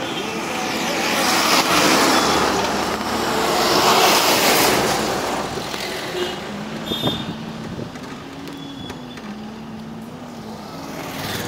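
Moving vehicle heard from inside the cabin: wind and road noise that swells loudest about two and four seconds in, then eases to a steady engine drone.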